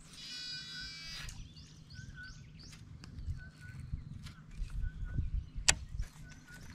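Animal calls: a harsh drawn-out call with many overtones in the first second, then short chirps repeated every half second or so, over a low rumble. There is one sharp click about two thirds of the way through.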